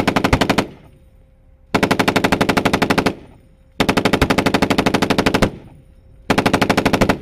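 Machine gun on an M1128 Stryker Mobile Gun System firing four long, rapid bursts, each a second or more, with short pauses between; the first burst is already under way at the start.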